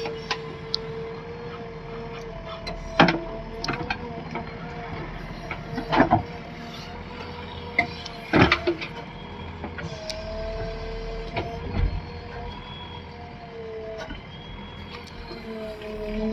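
JCB 3DX backhoe loader working: the diesel engine runs under a steady whine from the hydraulics that rises and falls as the arm moves. Three sharp metallic clanks, about 3, 6 and 8 seconds in, come from the bucket and boom.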